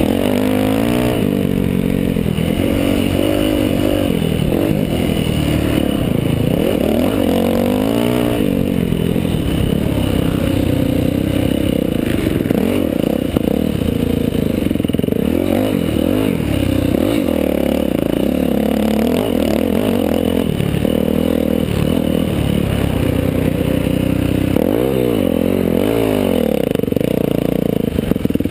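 Dirt bike engine under race riding, heard close from the rider's helmet camera, its revs rising and falling many times as the throttle is worked over rough ground.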